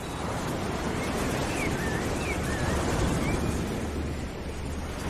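Road traffic going by: a steady rushing noise with a low rumble, with a few short high chirps in the middle.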